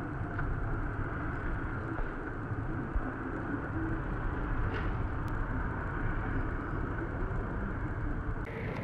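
Steady low rumble of outdoor city background noise with no distinct events; its character changes abruptly near the end where the shot cuts.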